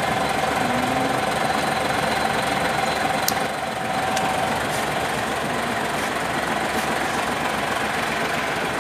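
Hino 700 truck's diesel engine idling steadily, with a light click about three seconds in.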